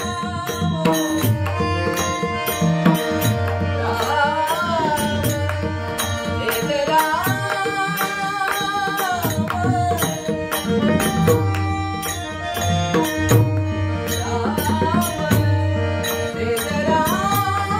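Devotional bhajan: a male voice sings long, ornamented phrases in classical style over a pakhwaj drum beating a steady rhythm, with small hand cymbals keeping time and held tones underneath.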